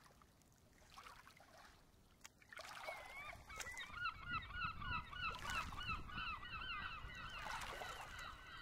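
Faint flock of birds calling, many short, overlapping calls repeating in quick succession, starting about two and a half seconds in after near silence.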